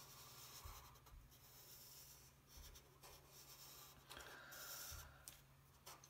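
Faint strokes of a felt-tip marker on paper: the marker tip rubbing across the sheet in short passes as a surface is shaded in, with a couple of small ticks near the end.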